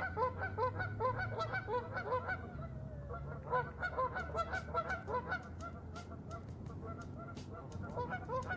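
A flock of geese honking: many short, overlapping honks, dense at first, thinning briefly a few seconds in, then picking up again before tapering toward the end.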